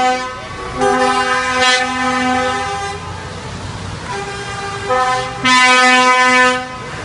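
Truck horns sounding in long, steady blasts one after another, several tones at once; the loudest blast comes about five and a half seconds in.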